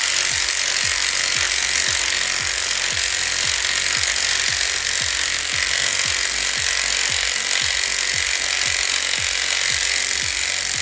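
A small impact wrench runs without a break, driving the threaded rod of a coil spring compressor to squeeze the strut's spring. It is steady and loud, with a regular pulse about three times a second.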